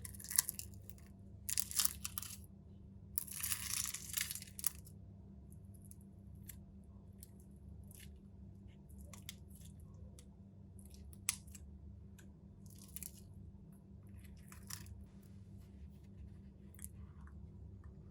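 Crunchy slime crackling and popping as it is squeezed and pressed by hand: three thick bursts of crackle in the first few seconds, then scattered small pops and crackles.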